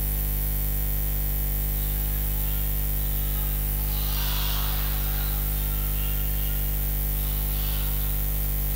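Steady electrical mains hum and buzz from the sound system, with a faint rustle about four seconds in.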